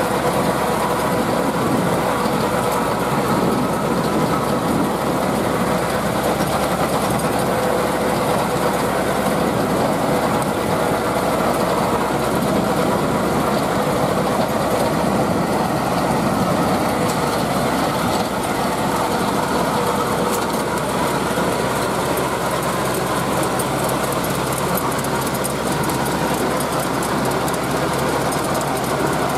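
Landini 8860 tractor's four-cylinder Perkins diesel running steadily under load, driving a rear rotary tiller whose blades churn through dry stubble soil. A steady hum from the drive sits over the engine and soil noise.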